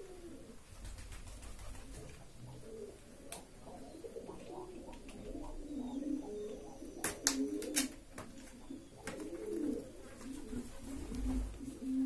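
Low, wavering cooing calls repeating again and again, with a sharp click about a third of the way in and a quick cluster of clicks a little past halfway.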